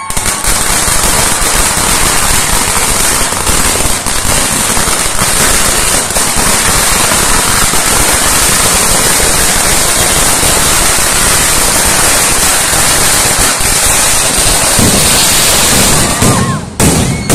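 Festival fireworks (vedikkettu) going off at ground level: a loud, unbroken volley of firecracker explosions that dies away about sixteen seconds in, followed by a couple of sharp bangs near the end.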